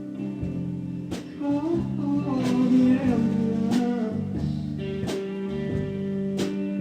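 A slow guitar-led song with a beat struck about every second and a quarter, and a voice singing a line in the middle.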